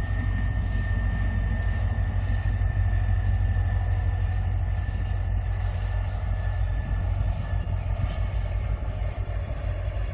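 Korail 7500-class diesel locomotive running light, with no train behind it: a steady low engine drone together with the sound of its wheels on the rails, and a thin steady high tone above. It gets slightly quieter near the end as it draws away.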